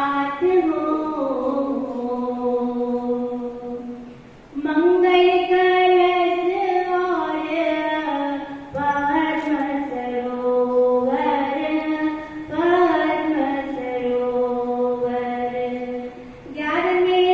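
Women's voices singing a slow devotional chant through a microphone, holding long notes phrase by phrase, with short breaks about four seconds in and near the end.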